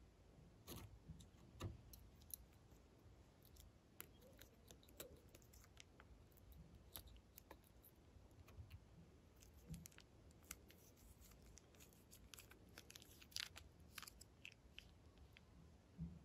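Faint, irregular crinkling and clicking of a thin plastic piping bag being squeezed, as clear gel is piped onto slime, with a few soft thuds.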